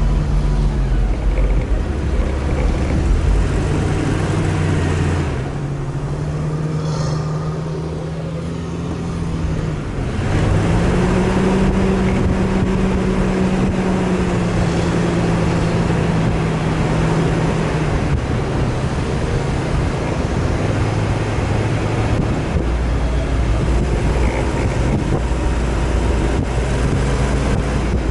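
Off-road vehicle's engine running under load, its note rising and falling as the driver works the throttle, over a steady rumble. It drops and quietens around five seconds in, then picks up again a little after ten seconds.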